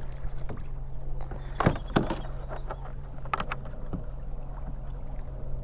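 Sharp clicks and knocks of hard plastic fittings and straps on a beached fishing kayak as they are handled and stowed, a few scattered strokes over a steady low hum.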